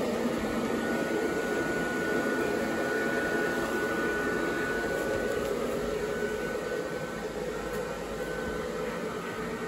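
The base blower fan of a yard inflatable running steadily as it inflates the snowman: a constant rush of air with a faint high whine.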